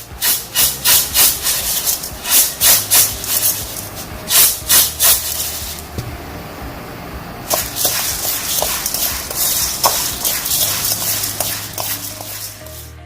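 Crisp fried chana dal (split chickpeas) being tossed with salt, rattling and rustling with a crispy sound. There is a run of strong rhythmic shakes, about three a second, for the first six seconds, then a denser, steadier rattle with small clicks.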